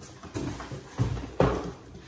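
Cardboard camera box being handled and opened on a table: a few dull knocks and rustles, the loudest about one and a half seconds in.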